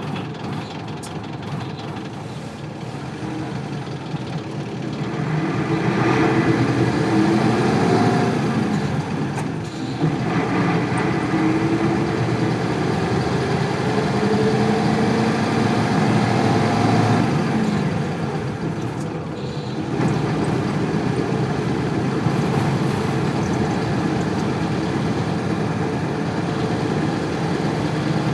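Isuzu Cubic KC-LV380L bus's 8PE1 diesel engine pulling away and accelerating. The engine note climbs, drops at a gear change about a third of the way in, climbs again and drops at a second gear change, then holds steady at speed.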